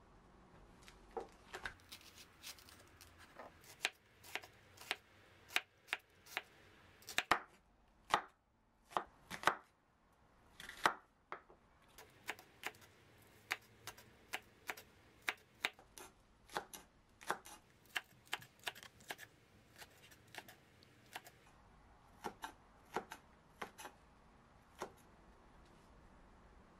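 Kitchen knife chopping green onions on a wooden cutting board: sharp, separate taps of the blade hitting the board, about two or three a second, in short runs with brief pauses.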